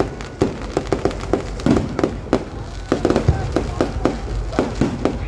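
Fireworks display going off: rapid, irregular bangs and crackles from shells launching and bursting close by, coming in clusters.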